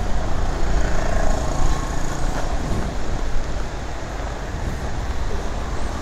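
Strong storm wind buffeting the microphone: a loud, dense rush with a heavy low rumble and no letup.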